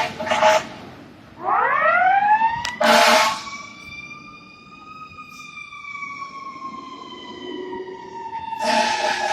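Fire truck siren winding up in pitch over about two seconds, then slowly winding down, with short loud blasts at the start, about three seconds in and near the end.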